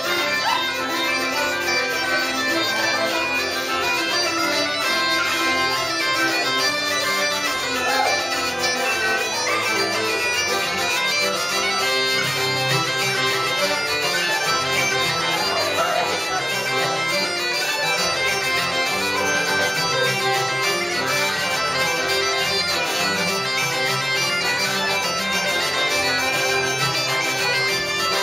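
Bagpipes playing a tune over their steady drones, live and continuous, with another instrument accompanying.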